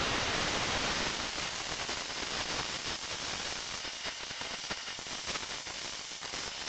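Compressed air hissing steadily from a blow-gun nozzle aimed at an LG G4 logic board, drying off the cleaning alcohol and flux residue. The hiss is strongest at the start and eases off a little over the first couple of seconds.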